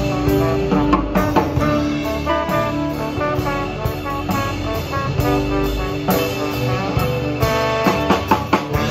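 Live band playing an instrumental passage: trombone sounding sustained notes over acoustic guitar, electric bass and drum kit, with a run of drum hits near the end.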